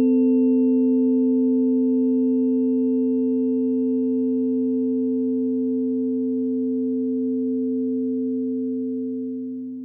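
A held harmony of several steady, pure electronic tones sounding together as one chord, the frequency tones laid to the astrological chart. It fades out slowly near the end.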